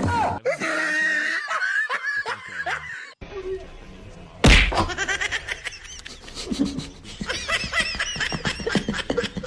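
Someone laughing in quick, repeated ha-ha pulses, with one loud thump about four and a half seconds in.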